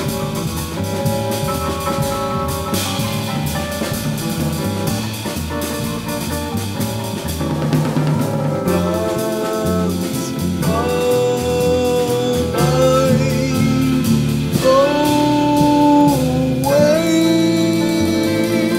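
Live jazz trio of grand piano, bass and drum kit playing a steady groove. From about halfway through, a male voice joins, singing long held notes that slide between pitches over the band.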